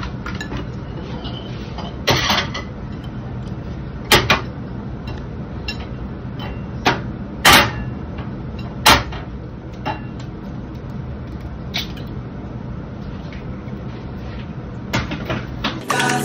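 Kitchen handling sounds: scattered sharp knocks and clicks of dishes and utensils being set down and moved, about eight in all, over a steady low hum.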